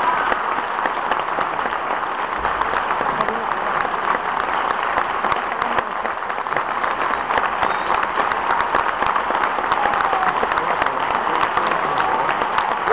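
Large theatre audience applauding steadily at a curtain call, a dense continuous patter of many hands clapping.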